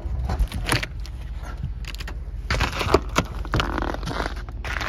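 Irregular knocks, scrapes and creaks of boots and hands on a frosty plastic truck bed cover as someone climbs onto the back of a pickup, over a steady low rumble.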